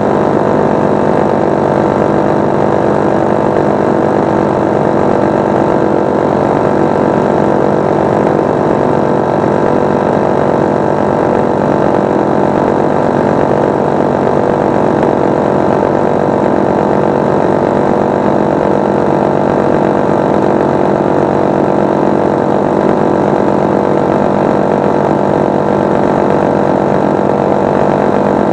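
Paramotor engine and propeller of a powered paraglider running steadily at cruise power in flight, a constant loud drone with no change in pitch.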